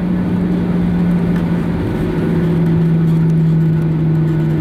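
Steady cabin noise inside a taxiing Boeing 737-900ER: the airliner's CFM56 engines at idle together with the cabin air system make an even hum, which drops slightly in pitch about two seconds in.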